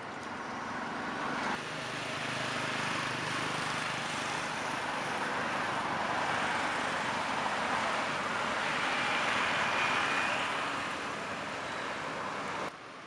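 Road traffic noise from a passing motor vehicle, swelling slowly to its loudest about nine to ten seconds in, then cut off suddenly near the end.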